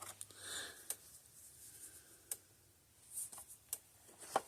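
Faint sharp ticks about every second and a half from a Gallagher M1500 fence energizer pulsing its output, with soft handling rustles between the ticks.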